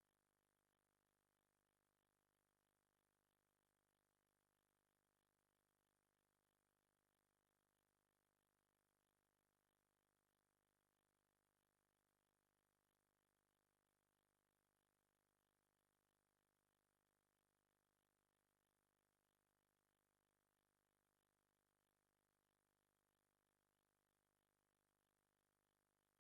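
Near silence: a faint, steady hiss of background noise with no distinct sound events.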